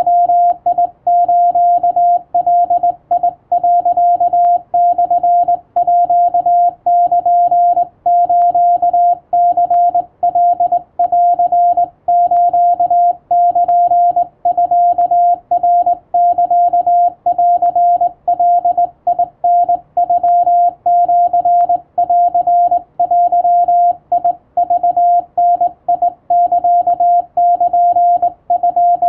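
Morse code sidetone from a hand-worked straight key: a single steady beep keyed on and off in a brisk, unbroken run of Japanese Wabun code characters. The tone stays on most of the time, broken by many short gaps, with faint clicks as the key makes and breaks.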